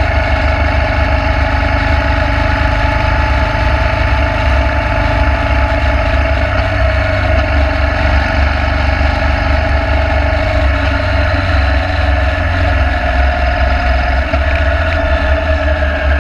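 Motorcycle engine running at a steady cruising speed on the road, with a strong steady low rumble underneath and a steady engine hum, no change in pace.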